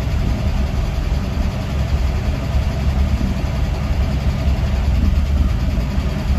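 1970 International Scout engine idling steadily, with its oil pressure still low and only slowly coming up.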